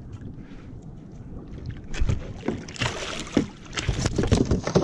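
Water splashing against a plastic fishing kayak, with knocks and clatter on the hull as a hooked fish is hauled alongside by hand. It is calmer for the first two seconds, then busier, with sharp knocks and splashes.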